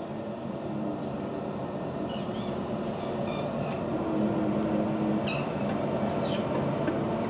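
Engine hoist lowering a hanging V8 engine on its chain: a steady mechanical drone with held tones that come and go, growing slightly louder, and a short hiss about two seconds in.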